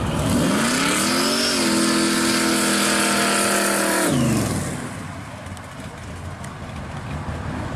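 Supercharged V8 in a small orange Chevy wagon accelerating past: the engine pitch climbs for about a second, holds steady for about three seconds, then falls sharply as the throttle closes about four seconds in, and the exhaust fades as the car drives away.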